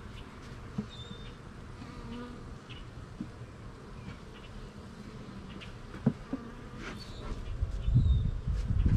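Honeybees buzzing steadily around an open hive, with a few light clicks, the sharpest about six seconds in. A louder low rumble comes in near the end.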